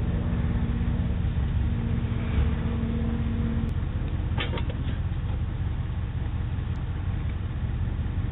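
Steady outdoor rumble through a doorbell camera's microphone, with a low hum that stops about three and a half seconds in and a few faint clicks about a second later.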